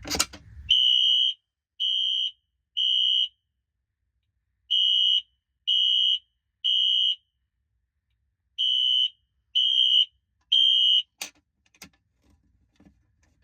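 Fire alarm sounder beeping in the temporal-3 evacuation pattern: three high-pitched half-second beeps, a pause, repeated three times. A click comes just before the first beep, and two sharp clicks come near the end.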